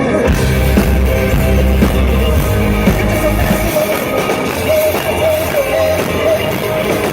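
Rock band playing live through a PA during a sound check: guitars and a wavering vocal line over heavy bass, and the bass drops out a little past halfway.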